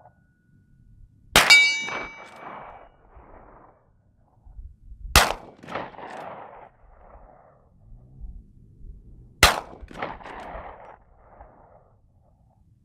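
Three shots from a Rossi R92 lever-action rifle in .44 Magnum, about four seconds apart, each followed by echoes rolling back for a second or two. A brief metallic ring follows the first shot.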